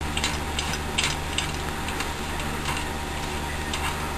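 Irregular light clicks and taps, roughly one or two a second, over a steady low hum.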